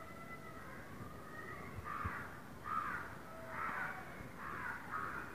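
Crows cawing, a series of harsh calls about one every half second to second, starting about two seconds in.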